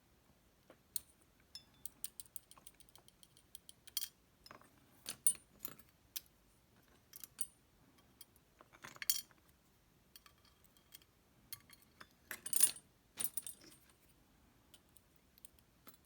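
Scattered metallic clicks and clinks of a Lockman Megacross SP lock being taken apart: a pick tool working in the cylinder and small metal pins being pushed out. There are louder clattering clinks about nine seconds in and again around thirteen seconds.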